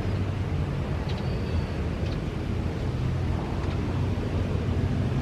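Steady low rumble of a twin-engine jet airliner's engines on short final approach, heard from a distance, with wind on the microphone.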